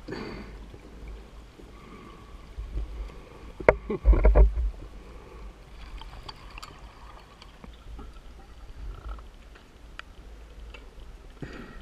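Underwater recording of a diver's exhaled bubbles: a loud gurgling burst about four seconds in, over a low steady rumble with scattered faint clicks.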